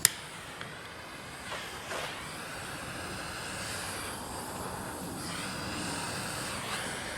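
Small handheld butane torch: a sharp click as it lights, then the flame hissing steadily while it shrinks heat-shrink tubing onto a shift cable.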